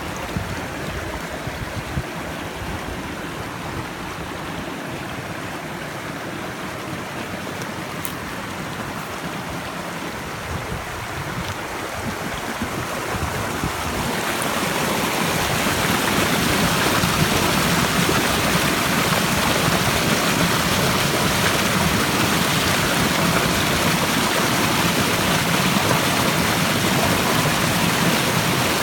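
Running stream water rushing steadily. It grows louder and brighter about halfway through and then holds steady.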